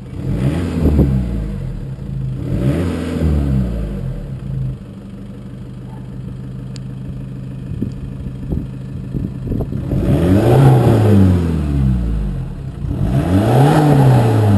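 Audi TT TDI turbodiesel blipped through a BCS stainless-steel performance exhaust: two quick revs, a few seconds of steady idle, then two longer revs near the end, each rising and falling back.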